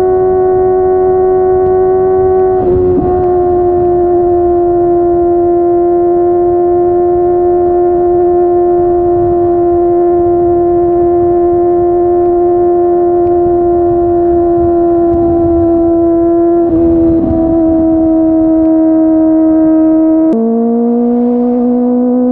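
Kawasaki ZX-25R SE's 250 cc inline-four, through a Yoshimura R55 slip-on exhaust, held at high revs while riding: a loud, steady high-pitched drone that sags slowly in pitch. There are brief breaks near 3 and 17 seconds, and about 20 seconds in the pitch drops sharply in an upshift and begins to climb again.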